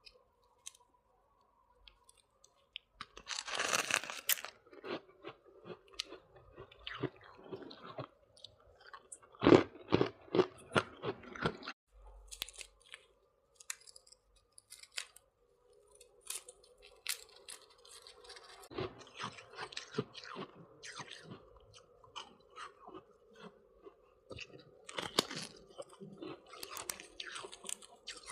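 Close-up biting and chewing of soft, crunchy freezer frost ice. A loud crunching bite comes about three seconds in, followed by runs of crisp chews with short pauses between them.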